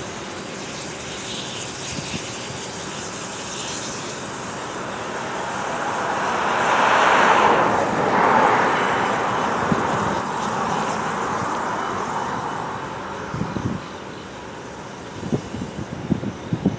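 Steam locomotive working as it approaches, a broad rushing exhaust noise that swells to its loudest about halfway through and then eases off, with a few low thumps near the end.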